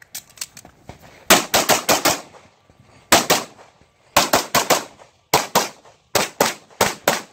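A Freedom Gunworks 9mm Major open-class pistol firing several rapid strings of shots, pairs and runs of four or five, with short pauses between them.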